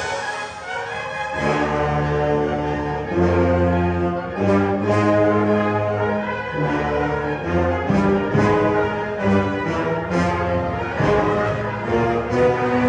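Grand piano accompanying a low brass instrument in a slow classical piece. The brass plays long held notes of a second or more each, after a softer first second.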